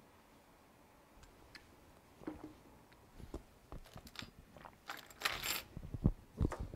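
Scattered small clicks and knocks of students handling pens, paper and desks, with a short rustle about five seconds in and two low thumps near the end.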